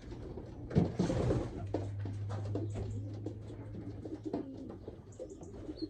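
Pigeons cooing in a loft, over rustling and light clicks from a young pigeon being handled, with a low steady hum underneath.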